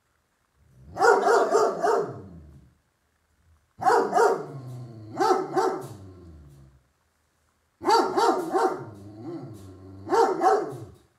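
Puppy barking in three bursts of quick, repeated barks with short pauses between them.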